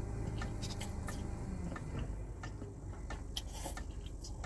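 Ramen noodles and broth being slurped and sipped straight from a paper cup, with many small clicks from the metal fork and mouth, over a low steady hum.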